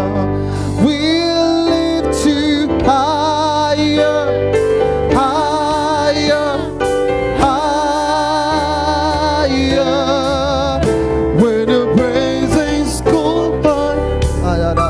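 Gospel worship music: a voice holds long, wavering notes over keyboard accompaniment.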